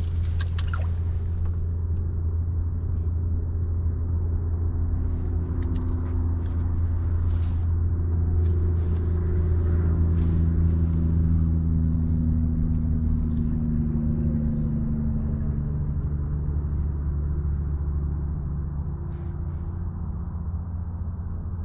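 A steady low rumble with a droning, motor-like tone that slowly wavers in pitch and swells a little in the middle, with a few faint ticks.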